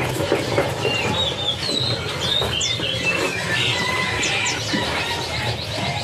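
A chorus of caged songbirds chirping and whistling over one another, short quick calls one after another with no break.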